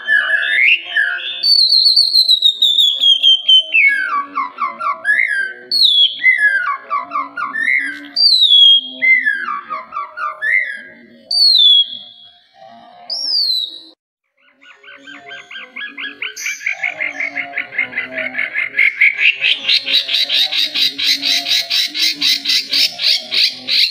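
White-rumped shama (murai batu) singing. It repeats phrases of downward-sliding whistled notes about every two seconds. After a brief pause a little past halfway, it switches to a fast, rattling trill of rapidly repeated notes that climbs in pitch.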